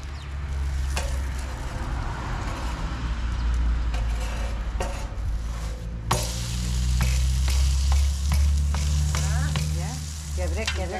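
Sugared village bread dough sizzling as it cooks over a wood fire, with scattered clicks and knocks and a steady low rumble underneath.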